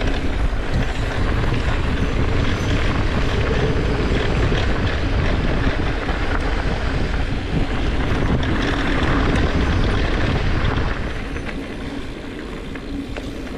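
Mountain bike riding down a dirt trail, heard from a camera on the chin of a full-face helmet: steady wind rush over the microphone with the low rumble of tyres on dirt and small rattles from the bike, easing a little near the end.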